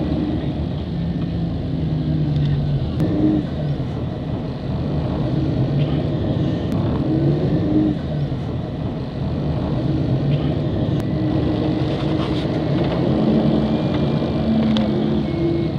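Tram running, heard from inside the passenger car: a steady low rumble of wheels on rails with a motor hum that shifts in pitch now and then.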